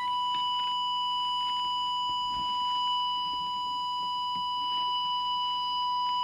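Steady audio test tone, a single unwavering beep-like note with faint overtones, frequency-modulating the transmitter of a York JCB863 CB radio and heard through the monitor receiver while its FM deviation is being set up; the deviation is set far too high.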